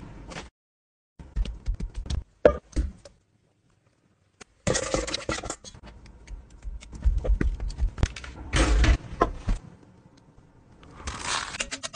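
Food-preparation handling sounds on a baking tray: scrapes, clicks and light knocks as food is placed and moved by hand and with a spoon, coming in several separate bursts with short silent gaps between them.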